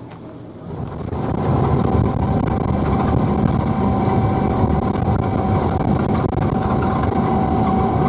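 Engine and road noise of a moving UAZ off-road vehicle, rising sharply about a second in and then running steadily, with a steady whine on top.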